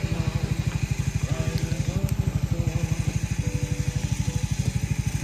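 Small engine idling steadily with an even, rapid low pulse of about a dozen beats a second, with faint voices or music behind it.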